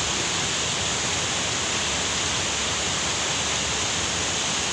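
Shallow stream rushing over rocks: a steady, even rush of water.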